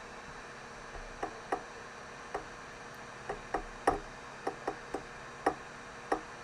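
About a dozen short, sharp clicks at irregular intervals, the loudest about four seconds in: someone clicking away at a computer, over a steady background hiss.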